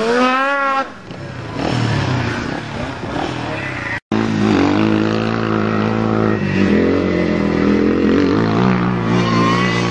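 Off-road vehicle engine running on the ice, at first rough and noisy, then after a brief cut-out about four seconds in settling into a steady drone with small changes in revs.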